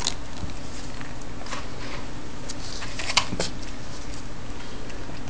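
A cat pawing at water in a plastic tub: a few short, light taps and splashes over a steady low hum, the sharpest about three seconds in.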